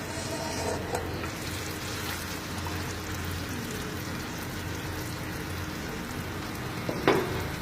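Cornstarch-dusted fish frying in hot oil in a pan, a steady sizzle. A sharp clack stands out about seven seconds in.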